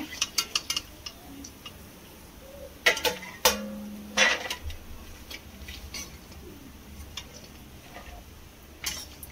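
Metal spatula scraping and knocking against a metal kadhai as fried nuts are scooped out of the ghee, with a quick run of clicks at the start, a few loud knocks about three to four seconds in, light ticks in between and more knocks near the end.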